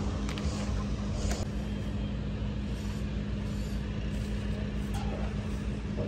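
Steady motor drone: a low rumble with one constant hum that holds unchanged throughout, and a couple of faint clicks about a second in.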